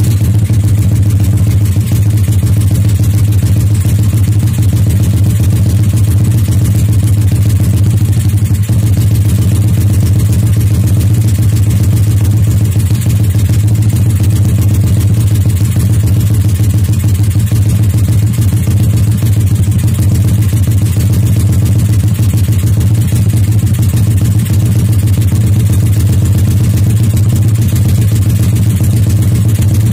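Modified Yamaha Jupiter Z's four-stroke single-cylinder engine idling steadily through an aftermarket racing exhaust, with a loud, helicopter-like beat.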